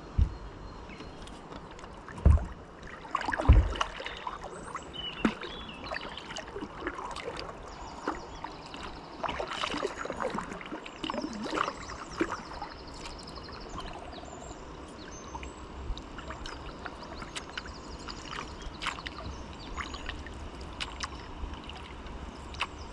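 Kayak paddling: a double-bladed paddle dips into calm water with irregular splashes and drips. There are two low knocks, a couple of seconds in and again a second later.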